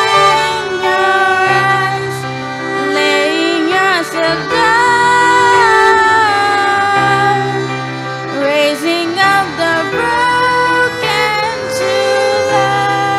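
Live worship song: a woman's voice and a violin carry the melody, with held notes and slides, over sustained chords from a digital piano.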